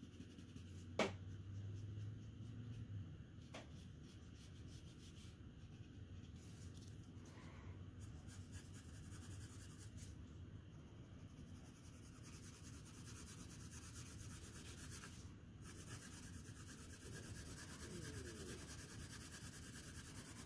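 Graphite pencil shading on paper: a faint, steady scratching of quick back-and-forth strokes that grows busier in the second half. There is a sharp click about a second in.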